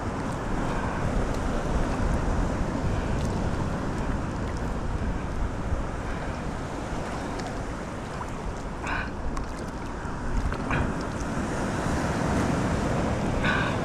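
Wind buffeting the microphone over water sloshing against a fishing kayak, a steady rushing rumble, with a few short, sharp higher sounds in the second half.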